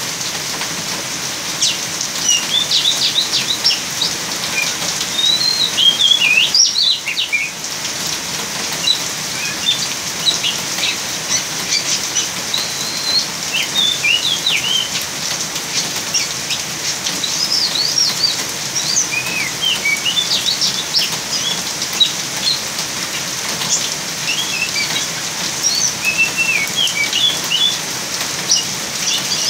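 Young oriental magpie-robin (kacer) singing in a cage, short chirps and whistled notes coming in quick runs with short pauses between, over the steady hiss of rain.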